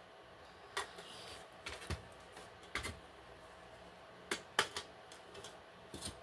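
Plastic smoke alarm housings being handled: a few scattered light clicks and taps, irregularly spaced, over a quiet room.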